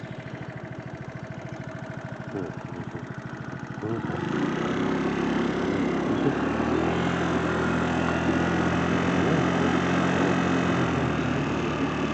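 A motor vehicle's engine running with a fast, even pulse. About four seconds in it grows louder and a steadier low hum joins it.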